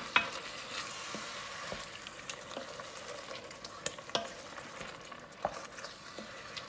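Wooden spoon stirring seared beef and tomato sauce in an enamelled cast-iron pot. The meat sizzles, dying down gradually, with a few knocks of the spoon against the pot, the sharpest just after the start.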